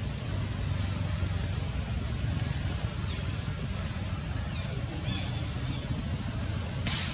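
Outdoor ambience: a steady low rumble with faint high chirps about once a second, and a short click near the end.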